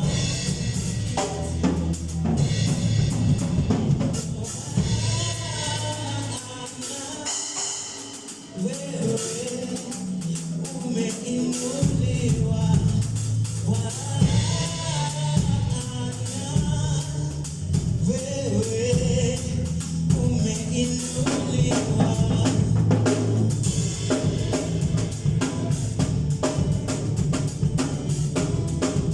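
Gospel worship music with singing, drum kit and bass guitar. The bass and drums drop out for about five seconds a quarter of the way in, leaving the voices, then the full band comes back in.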